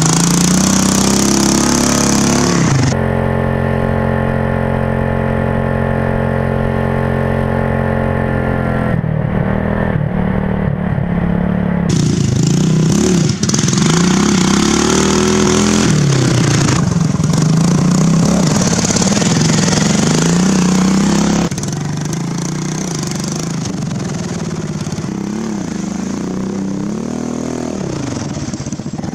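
Riding lawn mower engine, hot-rodded for speed, running hard and revving up and down as the mower is driven flat out through sand, grass and mud. The sound cuts abruptly from one clip to the next several times, with one stretch held at a steady high speed.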